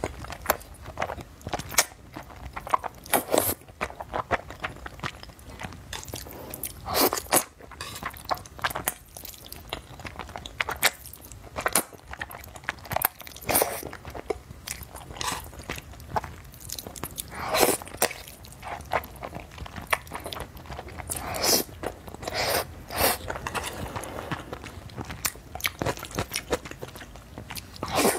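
Close-up eating sounds: noodles in sauce being slurped and chewed, in irregular wet bursts every second or two, with some longer slurps.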